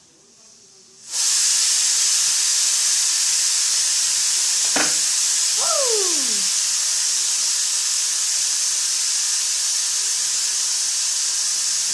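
A loud, steady hiss comes on suddenly about a second in and keeps going, with a single sharp click near the middle and a brief falling tone just after it.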